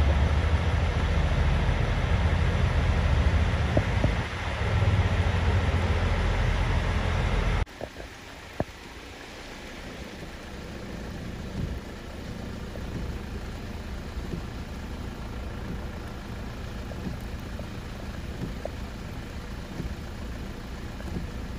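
Heavy diesel truck engine idling loud and steady, then a sudden cut to a quieter diesel tipper truck and trailer running as they move slowly past.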